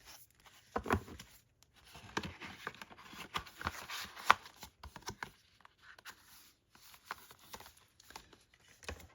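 Paper and card packaging being handled: irregular rustling, sliding and light taps, with one sharp tap about four seconds in.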